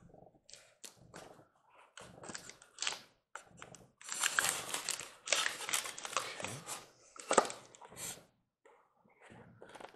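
Styrofoam packing box being opened by hand: the foam lid scrapes and rubs against the box as it is worked off. This comes with crinkling rustles and one sharper crunch about seven seconds in.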